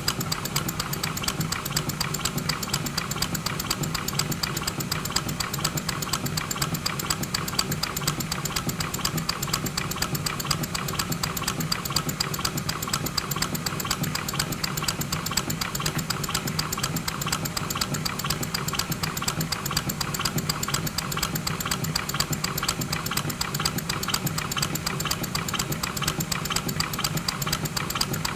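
Scratch-built twin-cylinder model of an Armstrong hydraulic engine running on compressed air: a steady, rapid chatter of exhaust puffs and moving parts, even in speed throughout.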